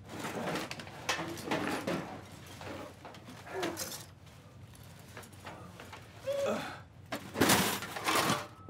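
Rummaging through a heap of paper, cardboard and toilet-paper rolls, with irregular rustling and clattering. Near the end comes the loudest burst, a metal clatter as a metal cantilever toolbox is opened.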